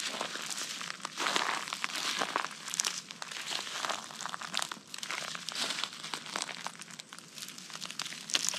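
Footsteps crunching through dry pine needles, grass and leaf litter: an irregular run of crackles and rustles.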